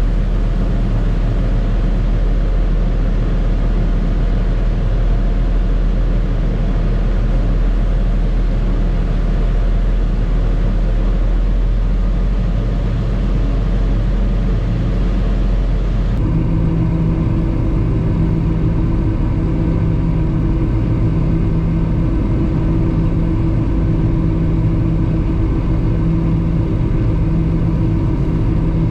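Tractor engine running steadily under load, a continuous heavy drone. About sixteen seconds in the sound changes abruptly to a steadier hum with distinct held tones.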